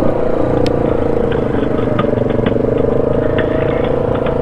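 ATV engine running at a steady, even pitch under throttle, with a few light clicks and knocks over it.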